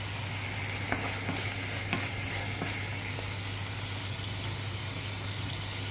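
Chunks of meat frying in hot oil in a steel pot: a steady sizzle, with a few light knocks as a wooden spatula stirs them.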